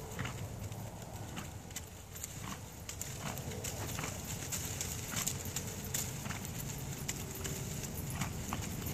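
Hoofbeats of a Tennessee Walking Horse gelding gaiting on a sand arena, a steady run of soft strikes roughly two a second.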